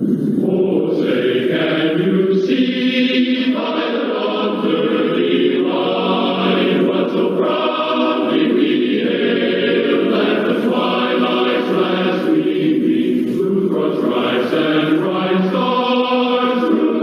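A choir singing a national anthem, starting about a second in.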